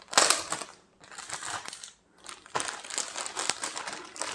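Plastic parcel and poly bags crinkling in the hands as the package is opened and the packets pulled out. The sound comes in bursts, with a brief pause about two seconds in before steady crinkling resumes.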